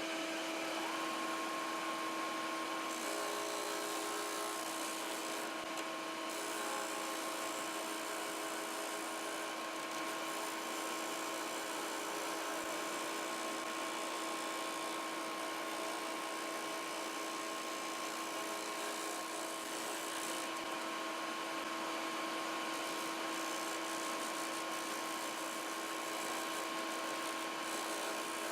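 Combination belt and disc sander's electric motor running steadily with a constant whine.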